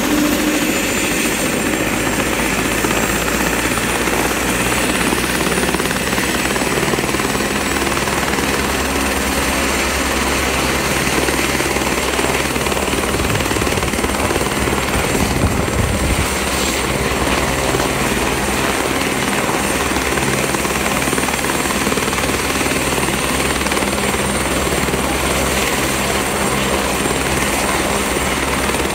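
Airbus AS350 Écureuil helicopter running on the ground before lift-off: turboshaft engine and turning rotors. Its high turbine whine climbs in pitch over the first couple of seconds, then holds steady.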